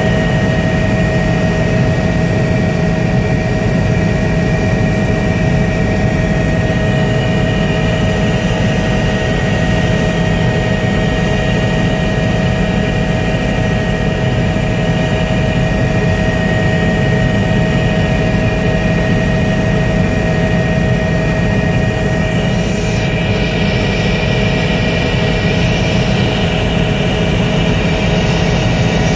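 Helicopter in steady cruising flight, heard from inside the cabin: a constant loud drone with a fast low throb and two steady whining tones, one mid and one high.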